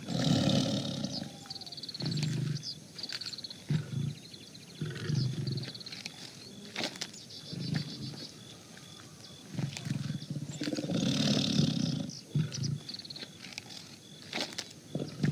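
Tiger growling: a long, loud growl at the start and another about eleven seconds in, with shorter growls between them.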